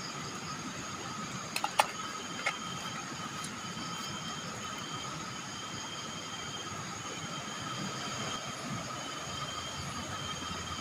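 Night insect chorus: several steady high-pitched trills, one of them pulsing on and off. A few sharp metallic clinks of a spoon against the cooking pot come about two seconds in.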